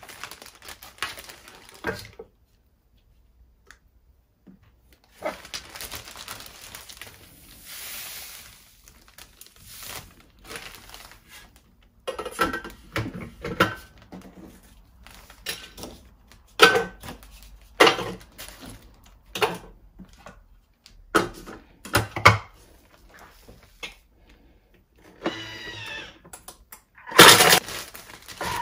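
Electric food chopper grinding stone-hard dried bread into breadcrumbs, started and stopped in short bursts with pauses between them, the hard pieces clattering sharply in the bowl.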